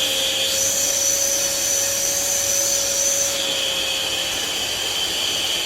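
Electric vacuum cleaner running steadily, sucking with its nozzle attachment removed. The pitch of its high whine jumps up about half a second in and drops back a little after three seconds.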